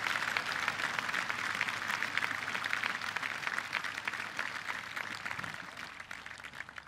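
Large crowd applauding, a dense patter of many hands clapping that fades away over the last couple of seconds.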